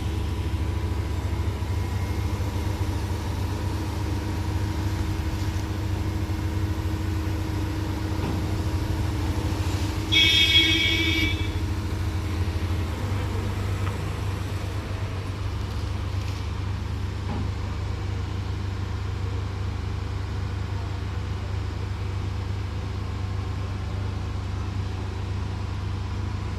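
A heavy engine runs steadily with a low hum. A horn sounds once, for about two seconds, around ten seconds in.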